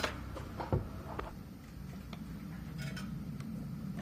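A few small clicks and knocks from tools and parts being handled on a repair workbench, the loudest about three-quarters of a second in, over a steady low hum.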